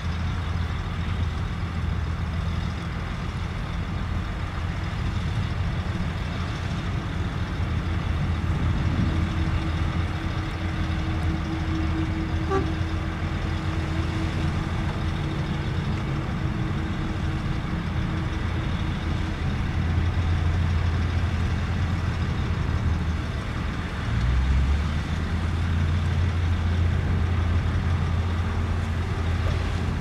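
Heavy dump truck's diesel engine running steadily as it tips its bed to dump a load of dirt and rock, with a steady higher hum joining for several seconds in the middle.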